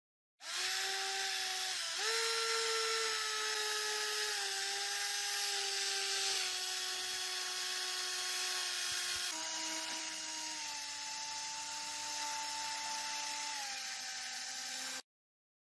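Small electric rotary tool with a yellow polishing pad running against a diecast metal model car body, a steady high whine. It starts about half a second in, its pitch shifts a few times and it cuts off abruptly near the end.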